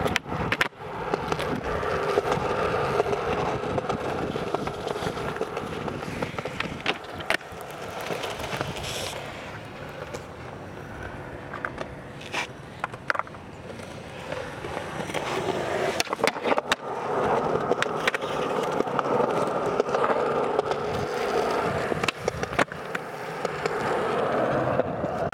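Skateboard wheels rolling on pavement, a steady roar that swells, fades through the middle and builds up again, with occasional sharp clacks.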